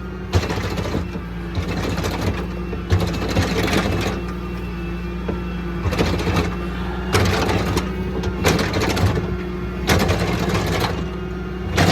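A vehicle engine running steadily, with irregular rattling and knocking over the drone.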